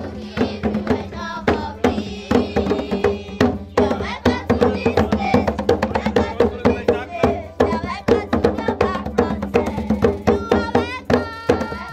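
Lively dance music with rapid hand-drum percussion and singing voices.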